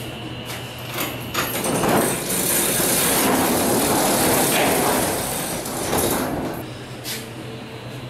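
A large door being slid shut: a long rolling rattle of about five seconds, with a few knocks just before and after it.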